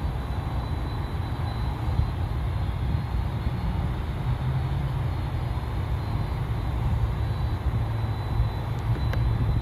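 Jet airliner engine noise: a steady low rumble with a thin, high whine held throughout.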